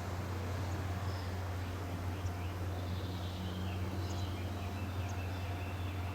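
Chirping insect or bird calls, coming in about three seconds in, over a steady low hum.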